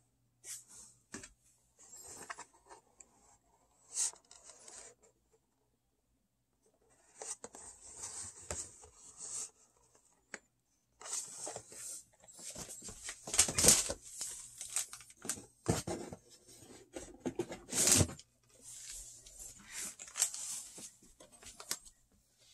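Cardboard and plastic packaging being handled and torn open: irregular crinkling, scraping and tearing with scattered sharp clicks, pausing briefly in the first third, the loudest bursts a little past the middle.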